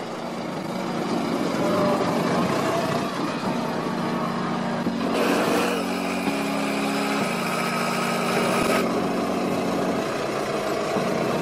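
Heavy railway track-renewal machinery running, a steady engine and working noise that grows harsher and hissier for a few seconds midway. Music plays underneath.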